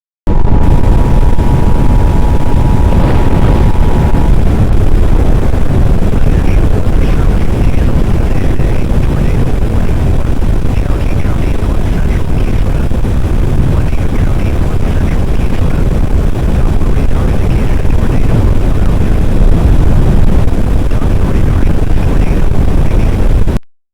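Heavy wind noise buffeting the microphone, loud and steady, with no speech. For the first four seconds a steady two-tone emergency alert signal sounds under it, then stops.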